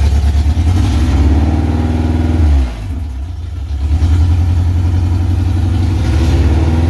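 Honda K24 four-cylinder engine in a Toyota AE86 Corolla running on one of its first starts after the swap. It is revved up and held, drops back about two and a half seconds in, then is revved up and held again from about four seconds in.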